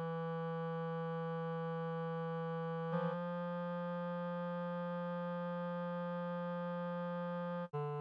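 Background music of long, held synthesizer chords that change about three seconds in and again near the end.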